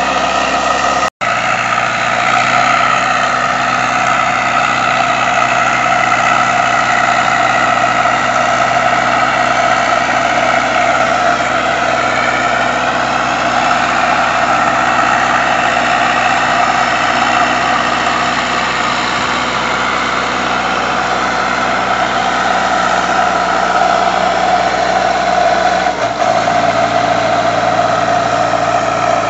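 Zetor 6911 tractor's diesel engine running steadily while it pulls a loaded manure trailer through mud, with a split-second dropout about a second in and a change in the engine note near the end.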